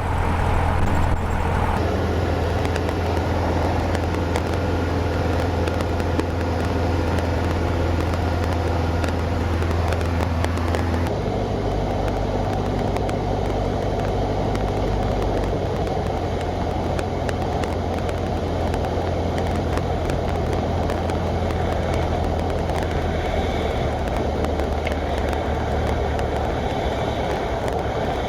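Cessna 172's piston engine and propeller running steadily with a deep, even drone. The sound shifts abruptly about eleven seconds in.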